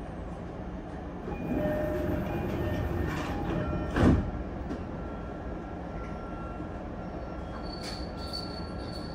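Inside a Sotetsu 10000 series commuter car starting off. The Mitsubishi IGBT-VVVF inverter hums in steady tones over the rumble of the car. One loud thump comes about four seconds in.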